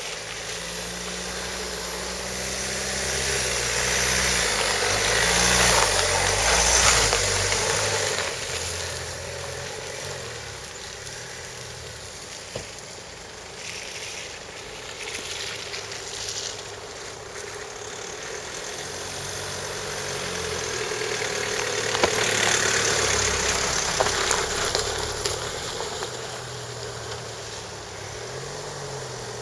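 Land Rover Freelander 2 SUVs driving slowly past one after another on a gravel track: engine running and tyres on gravel. The sound swells as each one nears and passes, loudest about six seconds in and again a little after twenty seconds, with the next one approaching near the end.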